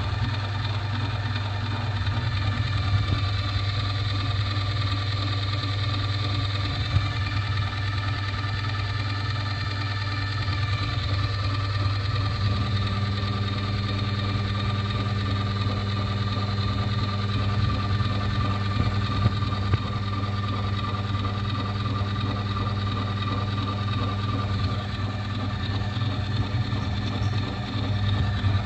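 Electric grinder motor running steadily with a constant hum. A few brief louder spikes come through, and its tone shifts slightly about twelve seconds in.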